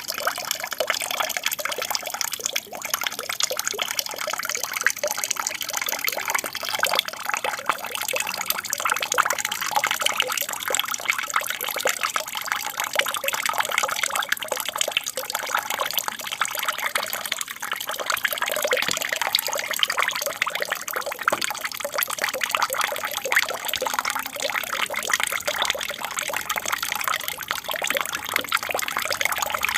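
Water from an aquarium's waterfall feature trickling and splashing steadily into the tank.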